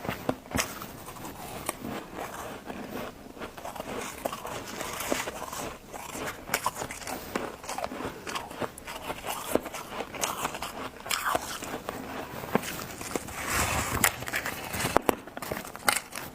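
A person biting and chewing crunchy white freezer frost, making irregular sharp crunches and crackles, denser near the end.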